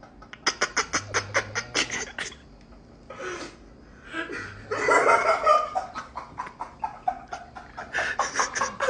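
Stifled giggling and snickering in quick breathy bursts, about five a second, with a louder stretch of laughter around five seconds in.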